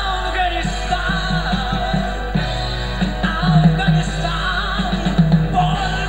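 Live rock band music: drums and electric guitar with a wavering lead line, over a steady low hum.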